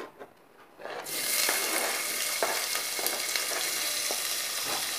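Chopped green capsicum (bell pepper) tipped into hot oil in a pan, setting off a sudden sizzle about a second in that then carries on steadily, with a few light knocks as the pieces land.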